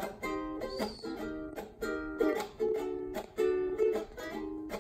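Acoustic ukulele strumming chords in a steady rhythm.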